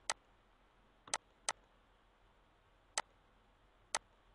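Computer mouse button clicking: single sharp clicks at uneven intervals, about six in all, two of them close together about a second in.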